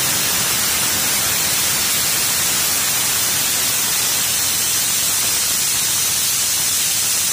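Aluminium pressure cooker's weighted whistle venting steam in one steady, loud hiss: the cooker is at full pressure.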